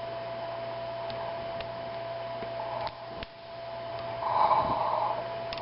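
A lock pick working the pin stack of a mortise lock cylinder, with a few faint sharp clicks, over a steady electrical hum. About four seconds in there is a short soft rushing sound.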